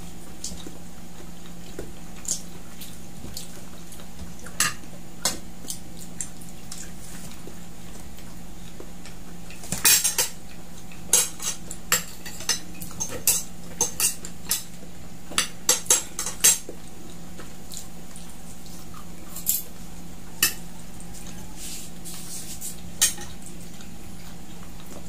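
Spoons and forks clinking and scraping against plates, bowls and food containers as people eat: scattered sharp clicks, coming thickest in a run about halfway through.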